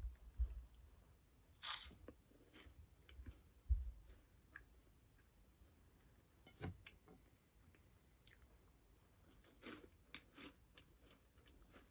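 Close-up biting and chewing of Home Run Ball custard-cream puff snacks: light crunches and small wet mouth clicks, with a few dull thumps in the first four seconds.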